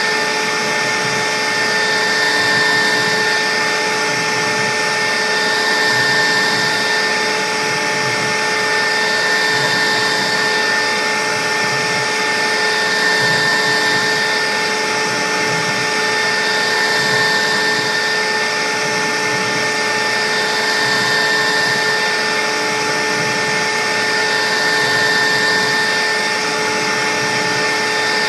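CNC router spindle running at steady speed while cutting, a constant high-pitched whine with the cutting noise swelling and easing every few seconds.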